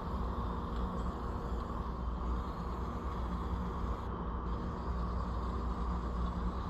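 Steady hiss of paint being sprayed over a low steady hum, with the top of the hiss cutting out briefly about four seconds in as the spraying pauses.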